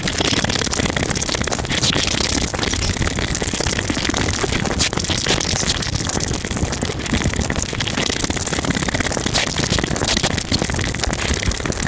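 Close-miked eating of saucy instant noodles: continuous wet chewing and slurping with many small sticky mouth clicks.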